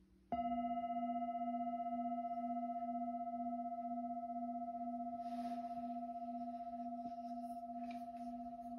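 A bell struck once, then ringing on with a long, slowly fading low tone, gently pulsing, and fainter higher overtones above it. A soft rustle comes in about five seconds in, and a few small clicks near the end.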